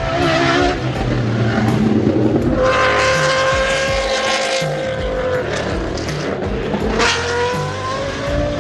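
Naturally aspirated Judd V10 racing engine in a Toyota Supra race car running hard at high revs on track. Its pitch holds, then sags, then climbs again about seven seconds in.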